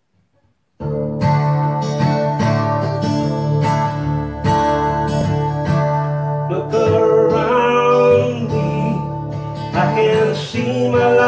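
Acoustic guitar strummed in a steady rhythm, about two strokes a second, starting about a second in: the instrumental intro of a folk-rock song.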